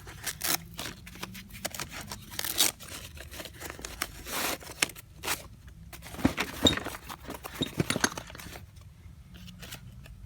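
Tools and small items being handled and shifted about in a tool cart: a run of clicks, knocks, scrapes and rustling, settling down about eight and a half seconds in.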